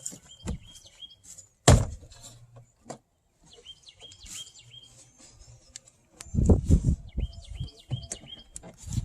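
A small bird chirping in three short runs of quick, high notes. A sharp click comes about two seconds in, and a louder burst of knocks and rattles about six seconds in, from plastic car door-panel parts and clips being handled and fitted.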